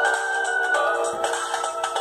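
NEC e616V flip phone playing one of its built-in ringtones through its small speaker: a synthesized melody of several notes at once, thin and without bass.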